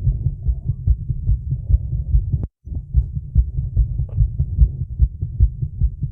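A woman's heartbeat, heard close up as a fast, steady lub-dub of about two to three beats a second, raised by the exertion of holding a plank. About two and a half seconds in, a sharp click is followed by a brief dropout before the beating resumes.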